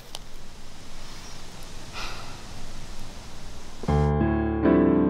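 Steady background hiss of outdoor ambience, then piano music starts abruptly about four seconds in, with held chords and single notes ringing over them.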